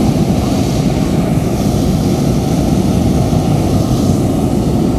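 Hot air balloon's propane burner firing in one long continuous blast, a loud steady rushing noise that is heaviest in the low range.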